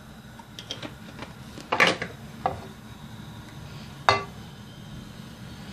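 Kitchen clatter around a frying pan: a few light clicks, then two sharp knocks with a short ring after each, about two seconds in and about four seconds in.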